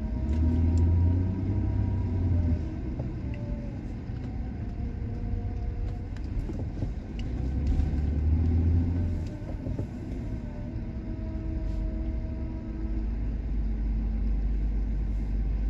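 Car engine and road rumble heard from inside the cabin while driving slowly along a city street, growing louder twice.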